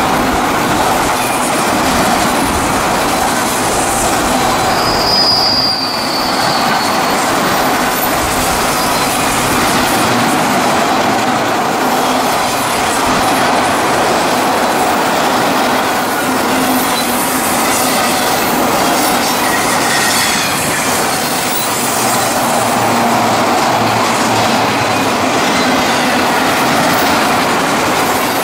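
CSX manifest freight train rolling past, a steady loud rumble and rattle of wheels on the rails, with a brief high wheel squeal about five seconds in.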